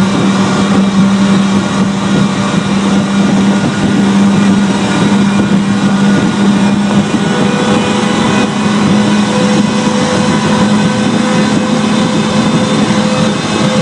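Fountain 35 Lightning performance boat running hard at high speed, its engines giving a loud, steady drone that holds nearly one pitch.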